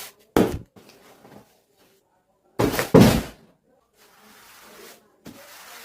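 Packaging being handled during an unboxing: a brief scrape, then a louder knock and thud about two and a half seconds in, followed by faint rustling.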